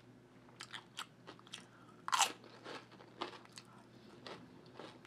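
Dehydrated okra chips being bitten and chewed: a series of sharp, dry crunches, the loudest about two seconds in.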